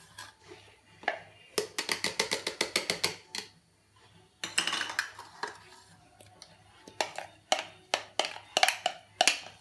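Clicking and tapping of hard plastic as a hand-blender chopper bowl and its blade are handled: a quick run of about a dozen taps a little over a second in, a few more around the middle, then scattered knocks near the end as the bowl is tipped out.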